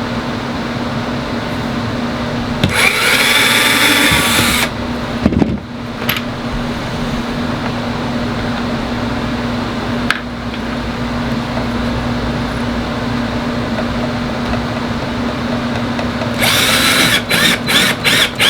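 Power drill driving screws into half-inch PVC sheet: one run of about two seconds near the start, then a string of short trigger pulses near the end as a screw is seated, over a steady hum.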